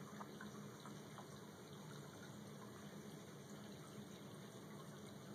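Near silence: steady hiss and low hum of room tone, with a few faint ticks.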